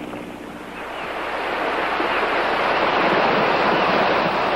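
Ocean surf washing onto a rocky shore, the rush of water swelling from about a second in and staying loud.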